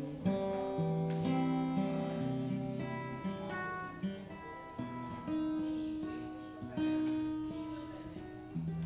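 Gibson J-45 acoustic guitar played slowly: plucked chords with bass notes left to ring, a new chord or note struck every second or so.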